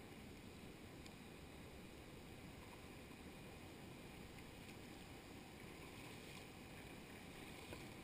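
Faint, steady wash of water around a kayak paddling a calm, flat stretch of river, with a few faint ticks.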